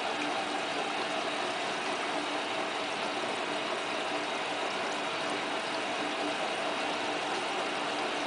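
Hotpoint Ultima WT960 washing machine running steadily early in its wool cycle, an even mechanical noise with a faint steady hum and no breaks.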